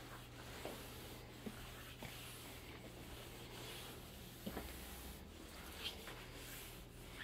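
Faint rubbing and swishing of a towel-covered flat mop pushed back and forth over a luxury vinyl plank floor, with a few light clicks along the way.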